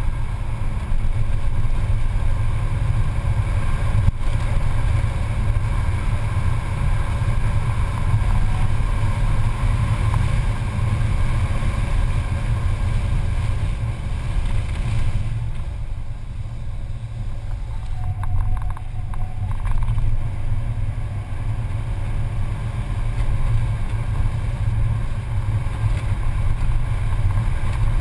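Mercedes-Benz C280 heard from inside the cabin at track speed: steady engine drone with tyre and road rumble. The engine note eases off for several seconds past the middle, then builds again.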